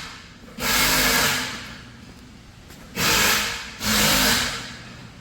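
Handheld power tool running in three short bursts of about a second each, a hissing whir with a low hum, as bolts are run down and tightened.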